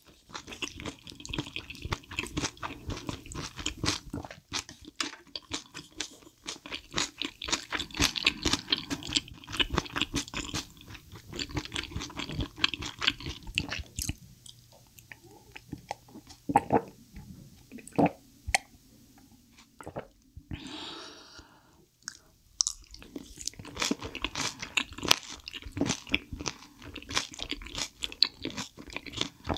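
Close-miked chewing of spicy chicken feet in a thick sauce: wet crunching and smacking of cartilage and skin. The chewing thins out for several seconds in the middle, then resumes dense.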